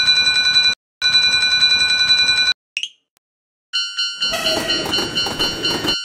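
Railroad crossing warning bell sound effect, ringing fast and steady with a short break before 1 s, and stopping about two and a half seconds in. After a short silence a different crossing bell starts at about four seconds, with noise under it.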